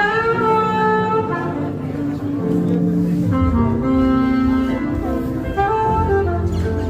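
Background pop music: an instrumental break with a saxophone-like wind melody over bass.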